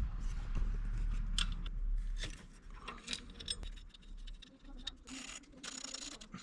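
Metal hand tools and parts clicking and clinking irregularly during timing belt work on an engine, with a low rumble for the first couple of seconds.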